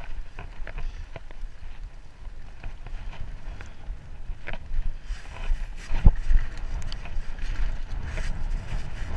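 Mountain bike riding down a dirt trail: wind buffeting the microphone and the tyres rumbling over the ground, with scattered clicks and knocks from the bike rattling over bumps and a heavy knock about six seconds in.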